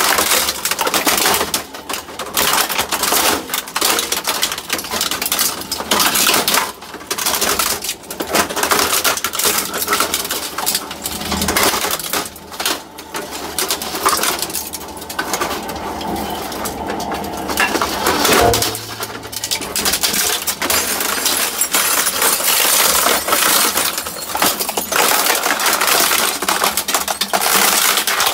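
Industrial shredder's rotating cutters crunching through printers: a continuous clatter of cracking plastic and snapping metal parts, with a heavier thump about two-thirds of the way in.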